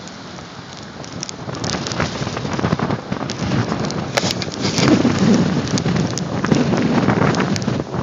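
Gusty wind buffeting a phone's microphone with crackling rumbles, quieter for about the first second and then louder and more ragged.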